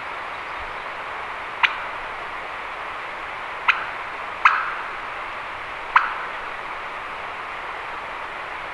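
Wild turkey gobbling four times, each a sharp call that trails off quickly, over a steady rushing noise.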